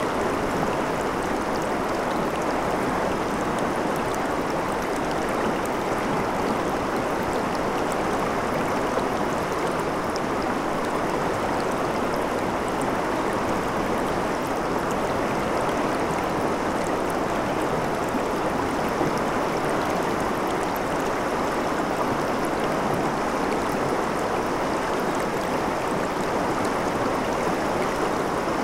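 Shallow river water flowing over and around rocks in a riffle, a steady, even rush of water.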